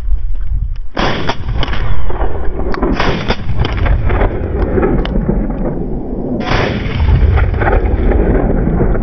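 Hunting shotgun fired several times in quick succession between about one and three seconds in, then once more a few seconds later, each shot ringing out across the open ground.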